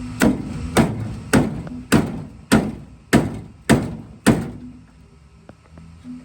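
Eight hammer blows on the car's sheet-metal body, just under two a second, each ringing briefly, knocking a caved-in panel back out.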